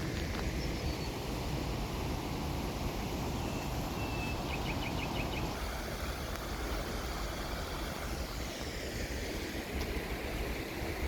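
Stream water rushing steadily. Near the middle a bird gives a brief call: one short note, then a quick run of about six notes.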